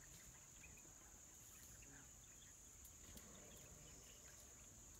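Faint, steady, high-pitched insect drone, with a few faint ticks and chirps scattered through it.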